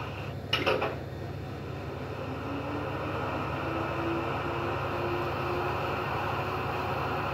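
Märklin gauge 1 E91 electric locomotive model with an ESU LokSound V4 XL sound decoder pulling away. A short hiss comes about half a second in. The running sound then grows slowly louder, with a faint whine rising in pitch as the locomotive accelerates.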